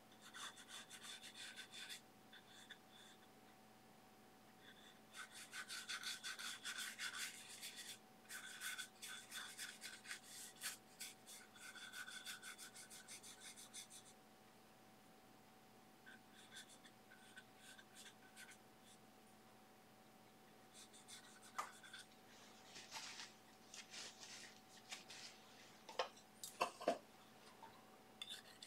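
Hog-bristle filbert brush scrubbing oil paint onto a smooth aluminium composite panel: dry, scratchy rubbing strokes in repeated spells, with a few sharper clicks near the end.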